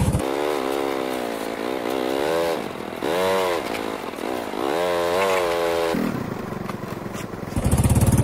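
Motorcycle engine revving up and down in a string of rising and falling whines. Near the end it drops back to a lower, steady running note.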